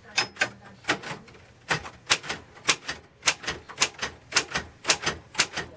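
Royal Safari manual typewriter being typed on: a run of sharp, irregular key strikes, about three or four a second.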